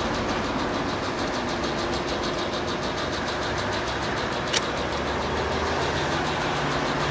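Aquatic weed-harvesting boat running steadily while mowing, its engine and drive giving a steady mechanical noise with a fast, even ticking. A single sharp click about four and a half seconds in.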